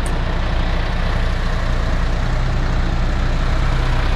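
Heavy truck's diesel engine idling steadily.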